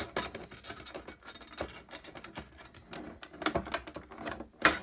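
Hard clear plastic card holder clicking and crackling as fingers pry at it to free a stuck card, a run of irregular small clicks with one sharper snap near the end.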